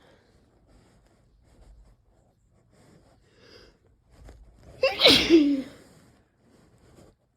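One loud human sneeze about five seconds in, brought on by sniffing Chhinkni herbal sneezing powder. It ends in a falling voiced tail and is preceded by faint breaths and sniffs.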